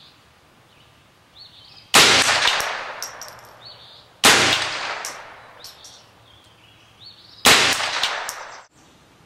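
Three single rifle shots from an AR-15 firing .22 rounds through a CMMG bolt conversion kit, about two to three seconds apart, each ringing out in a long echo; the last echo cuts off abruptly.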